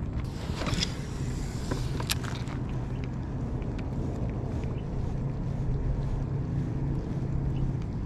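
Steady low hum and wind on the microphone aboard a pedal fishing kayak, with a few sharp clicks and some hiss in the first two seconds.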